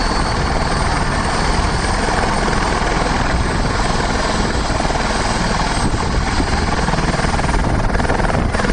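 Helicopter running on the ground at close range, its engine and turning main rotor making a loud, steady noise before lift-off.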